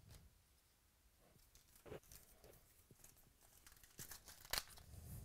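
Foil wrapper of a trading-card pack being torn open and crinkled: faint, with a few sharp crackles, the loudest about four and a half seconds in.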